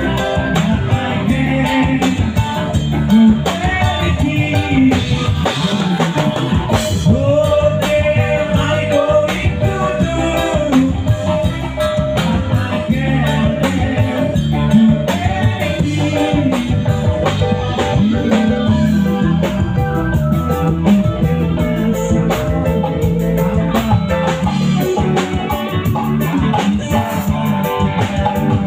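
Live band playing a song during a sound check: a singer over guitar and drum kit.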